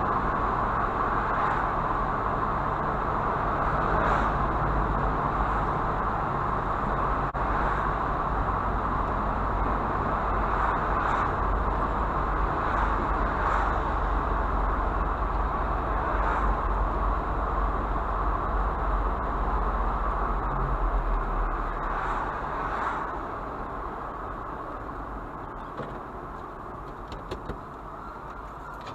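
Motor vehicle driving: a steady engine hum under road noise, dropping noticeably in level about 23 seconds in.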